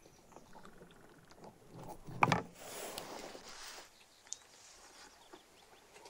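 A wooden ladle knocks once against wood about two seconds in. It is followed by a herb-flecked yogurt drink splashing from the ladle into a wooden cup for about a second and a half.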